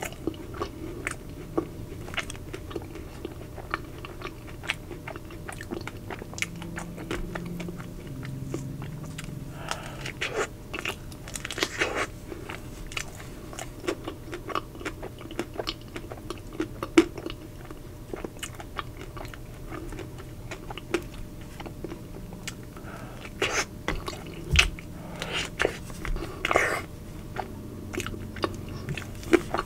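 Close-up eating sounds: chewing and biting through the chocolate shell of a Double Sea Salt Caramel Magnum ice cream bar, with many short crunches and crackles and louder crunches near the end.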